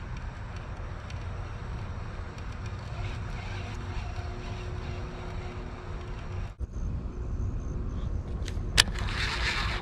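Wind rumbling on the microphone while a baitcasting reel is cranked in on a retrieve. A couple of sharp clicks and a short hiss come near the end.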